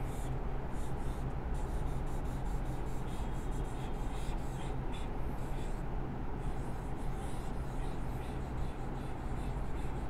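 Marker pen writing on a whiteboard: a run of short strokes as words are written out, over a steady low hum.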